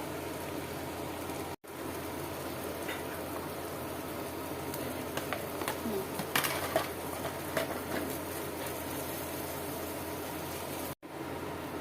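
Steady sizzle of mie goreng frying in a pan, with a few light clicks in the middle. The sound cuts out for an instant twice.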